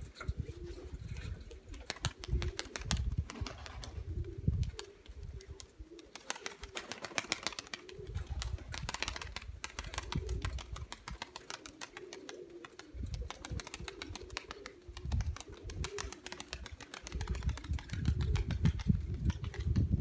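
Domestic Nikolaev pigeons cooing, over a run of quick sharp clicks and irregular low rumbling bumps.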